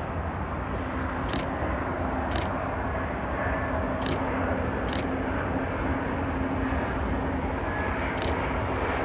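Distant Airbus A350-900 with Rolls-Royce Trent XWB engines on final approach to touchdown: a steady engine hum over a broad rumble of road traffic, with a few sharp high ticks.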